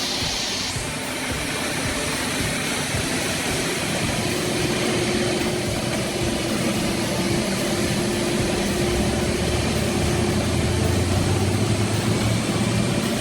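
Engine of a heavy vehicle or machine running steadily, with a droning hum that grows louder and deeper about two-thirds of the way through.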